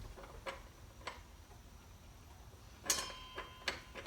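Small metal clicks and taps as a steel washer is fitted onto a table saw's blade arbor, with one sharper clink about three seconds in that rings briefly.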